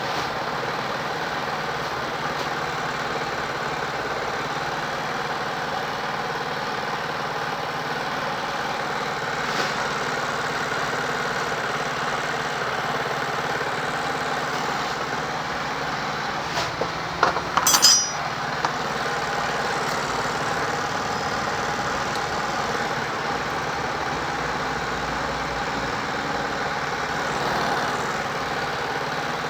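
Steady engine-like hum, with a short run of sharp metallic clinks about 17 to 18 seconds in.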